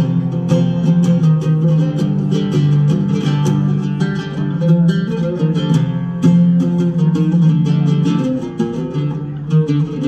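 Oud, the Arabic fretless lute, playing a melody of quick plucked notes.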